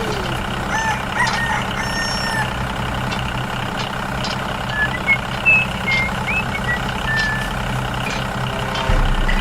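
Tractor engine running steadily with a low hum, with short high chirps and whistles sounding over it now and then.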